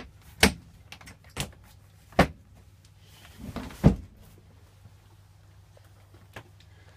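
Pull-out couch bed being pushed back closed: a few sharp knocks, a short sliding rub, and the loudest clunk about four seconds in.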